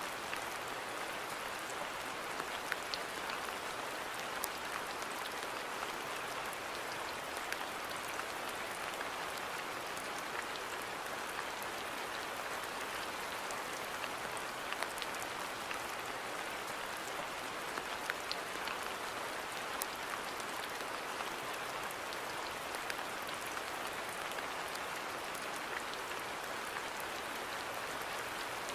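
Steady rain falling on a garden, an even hiss with scattered individual drops ticking on nearby surfaces.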